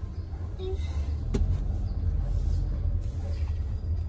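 Low rumble of a car moving slowly, heard from inside the cabin, growing a little louder about a second in, with a single sharp click just after.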